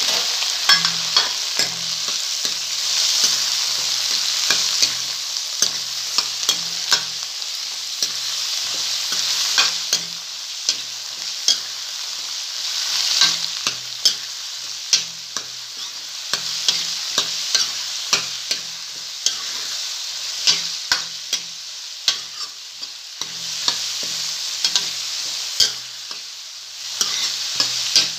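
Chopped onions frying in hot mustard oil in a kadhai, sizzling steadily while a spatula stirs them, with many sharp clicks of the spatula against the pan.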